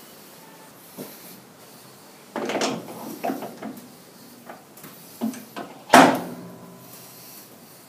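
Metal parts of a lathe tailstock chuck mount clunking and scraping as they are handled and fitted onto the lathe: a short clatter, a few lighter knocks, and one sharp knock about six seconds in, the loudest.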